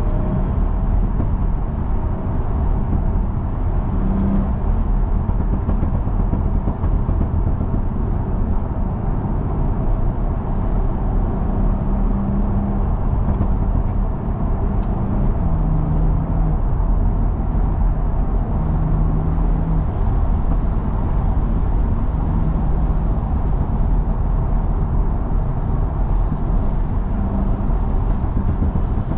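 BMW 340i's B58 turbocharged straight-six, with a decatted exhaust, running at a steady cruise under road and tyre noise. The engine note holds nearly steady, shifting slightly in pitch now and then, with no pops or crackles.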